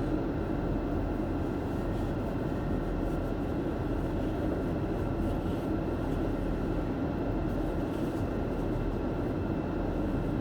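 Steady hum of a car's idling engine and heater fan, heard from inside the cabin as the car warms up.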